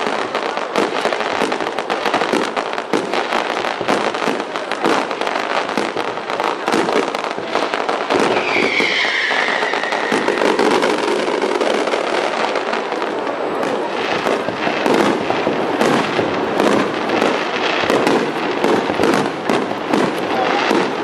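Aerial fireworks display: a dense, unbroken barrage of shell bursts and crackling. A falling whistle comes about halfway through.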